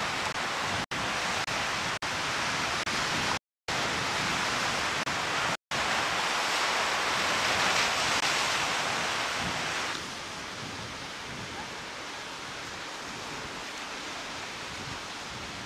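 Heavy surf breaking and churning against rocks, a steady rush of noise with a few brief dropouts in the first six seconds. It swells louder for a few seconds, then drops to a quieter rush about ten seconds in.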